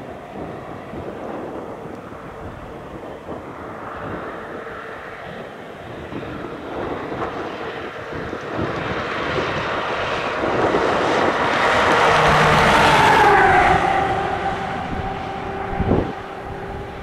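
An engine passing by: it builds over several seconds, peaks, and its hum drops in pitch as it goes past, then fades, over steady wind noise.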